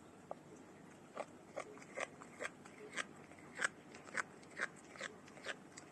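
A cat chewing food, with short, sharp chewing sounds about twice a second that grow stronger about a second in.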